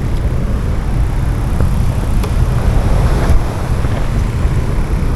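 Wind buffeting the camera microphone: a loud, uneven low rumble with a few faint ticks.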